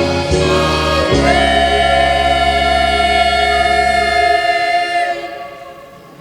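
Vocal group singing the song's final chord. After a few short notes they hold one long chord; the low voices drop out, then the upper voices release about five seconds in, leaving a fading echo.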